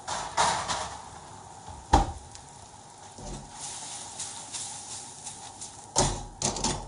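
Sliced peppers and onions in salsa sauce sizzling in a steel wok as it is shaken and tossed on the gas hob. A sharp knock about two seconds in, and a few more knocks near the end.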